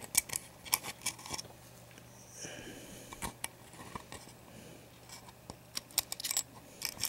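Scattered light clicks and taps of the small parts of a disassembled first-generation iPhone being handled, over a faint steady hum.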